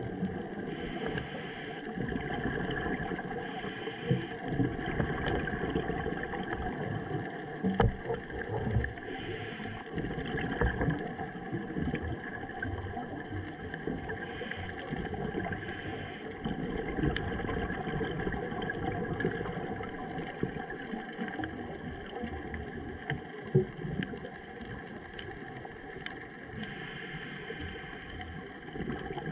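Underwater sound heard through a diving camera's housing: a steady rumbling hiss, with the diver's exhaled scuba-regulator bubbles rushing past several times and scattered sharp clicks.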